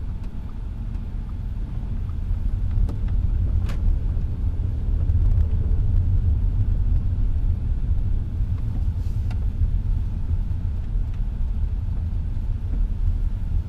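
Steady low rumble of a car's engine and tyres heard from inside the cabin while driving, with a couple of faint knocks about four and nine seconds in.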